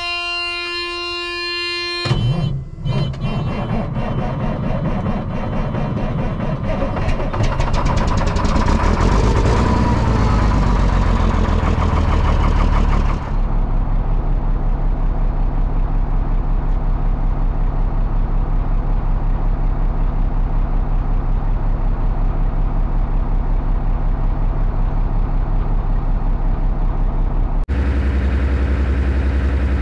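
Semi truck's diesel engine cranking and catching on a cold start with very cold oil, running hard for several seconds, then settling abruptly into a steady, evenly pulsing idle. A steady tone sounds for the first two seconds before it starts.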